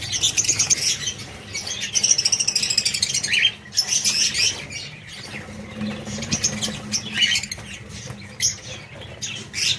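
Baby chicks cheeping: many rapid, shrill, overlapping calls, loudest in the first three seconds, dropping off briefly around three and a half seconds in, then fainter and more scattered.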